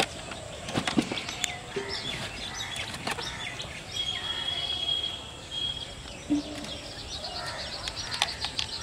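Live fish flapping and slapping against the inside of a plastic tub, a series of irregular wet knocks. Birds chirp in the background, with one steady high whistle for about two seconds near the middle.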